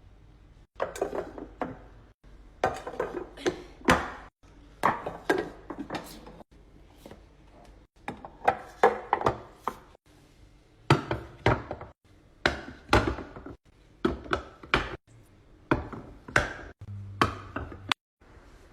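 Hard containers and food items being handled and set down, a run of sharp knocks and clacks in clusters, broken by several abrupt cuts to silence.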